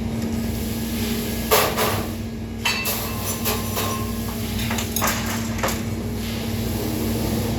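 A few sharp metallic clanks and clinks, like tools or metal parts being handled and set down, over a steady low hum.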